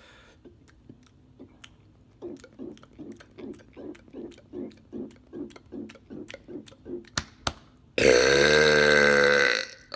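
A man's loud, long forced burp starting about eight seconds in and lasting nearly two seconds. It is preceded by a run of soft gulping sounds, about three a second.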